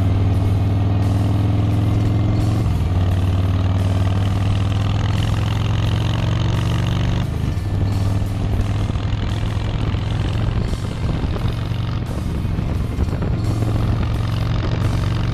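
2018 Harley-Davidson Street Bob's Milwaukee-Eight 107 V-twin engine running loudly. Its pitch rises slowly, then drops a step about two and a half seconds in. From about seven seconds it turns rougher and less even, and near the end it steadies again.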